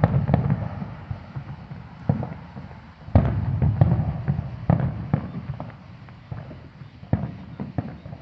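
Aerial firework shells bursting: a series of sharp bangs, each trailing off in a low rumble, with the loudest cluster about three seconds in and the bangs growing fainter toward the end.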